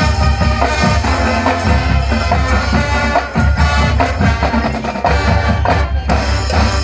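A marching band playing live outdoors, with wind instruments over drums and percussion.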